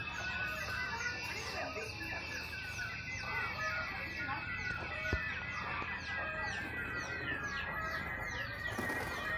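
Birds calling and chickens clucking all around. A quick series of high, falling chirps repeats about twice a second over a steady high tone.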